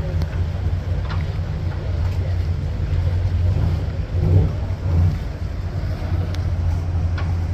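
Boat engine idling with a steady low rumble, faint voices in the background.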